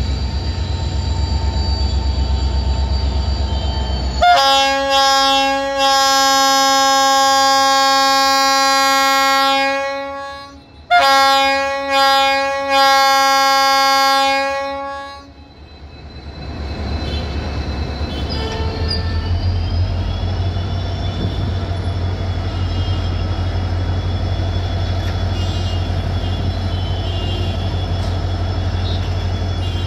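Indian Railways diesel locomotive sounding its multi-tone horn in two long blasts, the first about six seconds and the second about four, starting some four seconds in. Before and after the horn, the locomotive's diesel engine runs with a low throbbing rumble as it creeps toward the crossing.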